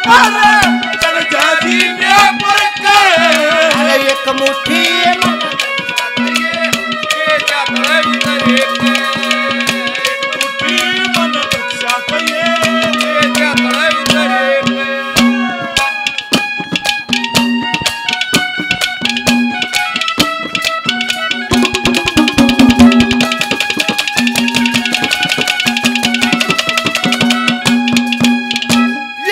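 Haryanvi ragni folk ensemble playing an instrumental passage: a melody with held and sliding notes over fast hand-drum strokes. The melody thins briefly about halfway through while the drumming carries on.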